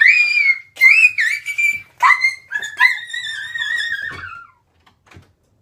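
A girl screaming: four high-pitched shrieks in a row, the last about two seconds long and dropping in pitch as it ends.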